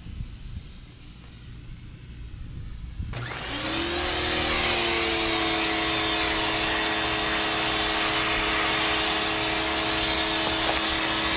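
Pressure washer starting about three seconds in, its motor quickly spinning up to speed and then running steadily, with the hiss of the spray from the wand and foam cannon.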